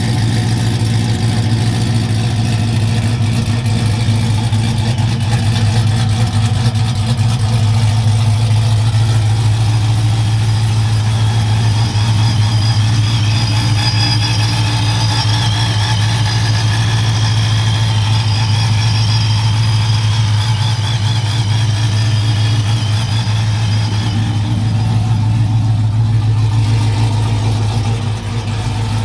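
Supercharged Hemi V8 of a Ram 1500 idling steadily on a cold start after three weeks of sitting, running through an open exhaust cutout.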